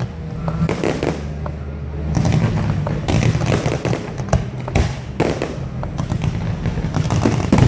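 Fireworks display: repeated bangs of shells bursting, some single and some in quick clusters, with crackling.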